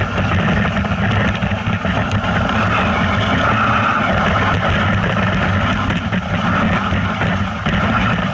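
A motor vehicle's engine running steadily at an even pitch, with a constant low hum under a broad hiss.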